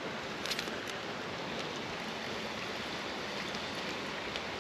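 Creek water running steadily, an even rushing hiss, with a faint tick or two about half a second in.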